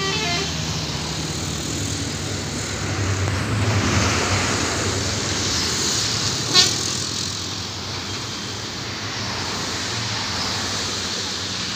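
Steady road traffic noise with a vehicle passing louder about four seconds in, and a single sharp click about six and a half seconds in.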